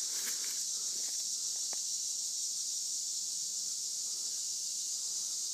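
Steady high-pitched chorus of insects in woodland, with one faint short click about a second and a half in.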